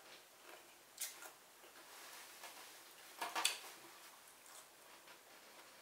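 Close-up eating sounds: steady chewing with small wet mouth clicks about twice a second. Two sharper crackles come about a second in, and a louder burst of crackling comes a little past three seconds.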